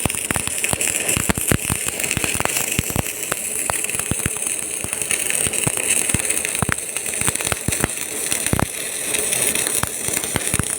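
Electric arc welding on a JCB 3DX backhoe loader's steel bucket: a steady sizzling hiss with dense, irregular crackling pops.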